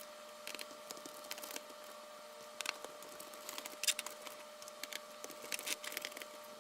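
A hex driver loosening the small 2.5 mm hex screws of a Taranis transmitter's gimbal, heard as faint, irregular clicks and small creaks of tool and screws in the plastic case.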